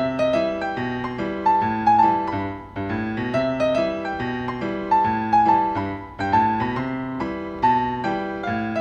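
Background piano music: a slow melody of single struck notes over held lower notes.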